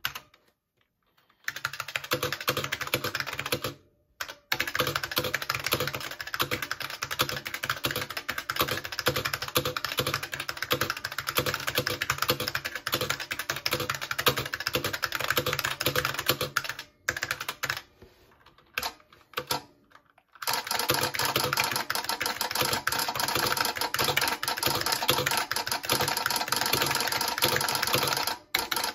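Fast, continuous typing on an F77 Model F keyboard with buckling-spring keys. The typing starts about a second and a half in, stops briefly about four seconds in, and breaks off for a few seconds about two-thirds of the way through before running on.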